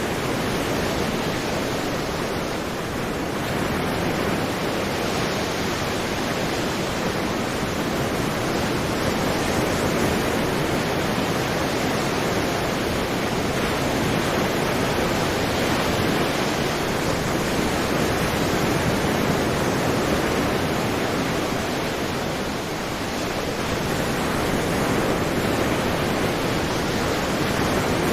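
Sea waves breaking: a steady, dense roar of surf that eases briefly a couple of times.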